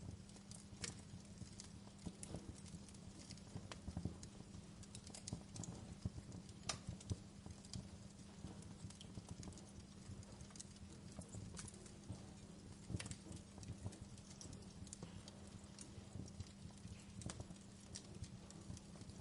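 Wood fire crackling in a fireplace: irregular small pops and snaps, a few sharper cracks, over a faint steady low hum.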